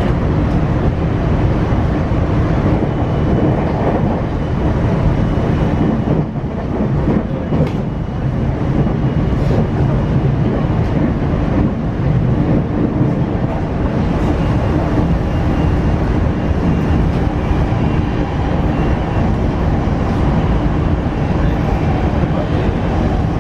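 Cabin running sound of a JR West 225 series electric multiple unit with a Hitachi IGBT traction inverter: steady rumble of wheels on rail, with faint steady tones from the motors and inverter.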